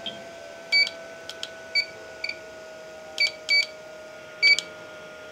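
Short, high electronic beeps from a small DC electronic load module as its buttons are pressed: about six, irregularly spaced, with faint button clicks. A faint steady hum that slowly drops in pitch runs underneath.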